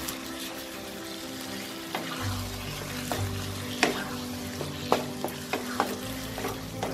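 A spatula stirring and scraping a thick mix of taro stems and fried hilsa fish heads in a non-stick wok, over a low sizzle of frying. Sharp clicks of the spatula against the pan come through, most of them in the second half.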